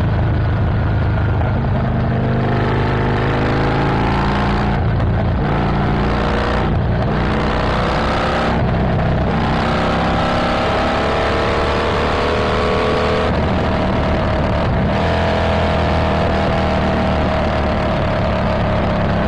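Harley-Davidson Iron 1200's air-cooled 1200 cc V-twin with a Stage 1 exhaust and intake, under way and accelerating. The engine note climbs in pitch again and again, broken by short dips at the gear changes.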